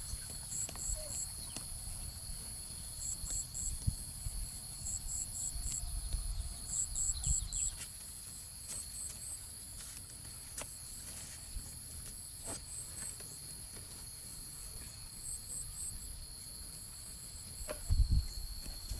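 Insects calling: a steady high trill, with a cricket chirping in short runs of three or four pulses. Underneath are low rustling, a few clicks, and a louder thump near the end.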